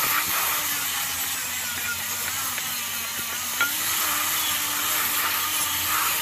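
Electric angle grinder with a disc attachment running steadily against a flat steel plate, sanding its surface: a continuous hissing rasp over the motor's hum, which wavers slightly as the pressure changes.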